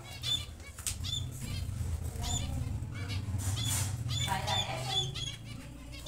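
Diamond dove flapping its wings as it flies about the cage, among repeated short high chirps from cage birds, over a steady low hum.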